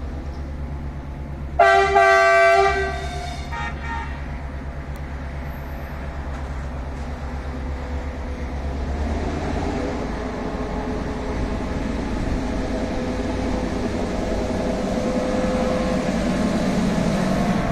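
MÁV M61 (NOHAB) diesel locomotive: its EMD two-stroke V16 engine runs with a steady low rumble, and its multi-tone horn sounds once for about a second, about one and a half seconds in. From about nine seconds in the engine grows steadily louder as the locomotive works up to pull its train away from the station.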